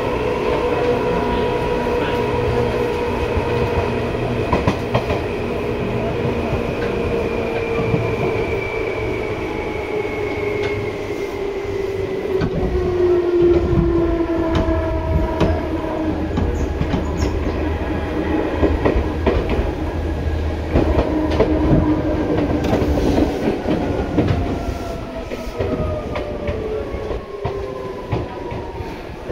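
Seibu 2000 series electric train running, heard from inside the car: the motor and gear whine falls steadily in pitch as the train slows, over a low rumble of wheels and rail-joint clicks.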